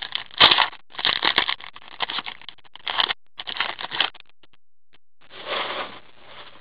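Foil wrapper of a trading-card pack being crinkled and torn open by gloved hands: a run of rustling, crackling bursts, with sharp handling knocks about half a second and a second and a half in, and one more crinkle near the end.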